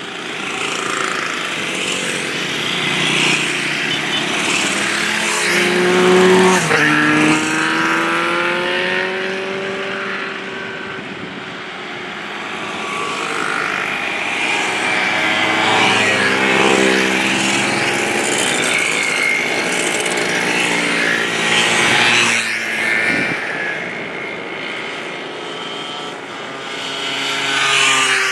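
A procession of vintage motorcycles, scooters and a sidecar outfit riding past one after another, their small engines running and each dropping in pitch as it goes by. The loudest pass-bys come about six seconds in and again around sixteen seconds, with single machines passing near the end.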